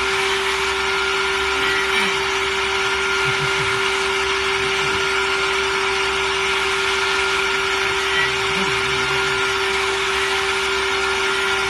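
CNC machine's spindle motor running steadily: a constant whine over an even hiss.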